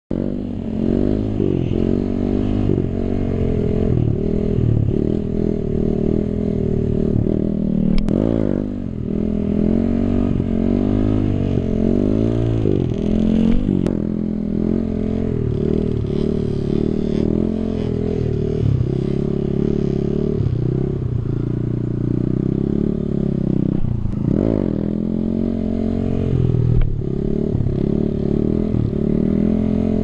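Kawasaki KLX D-Tracker's single-cylinder four-stroke engine revving up and down over and over while the bike is held in a circling wheelie, with a couple of sharp clicks.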